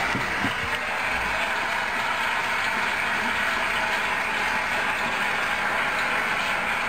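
Steady, even mechanical noise with no distinct clicks.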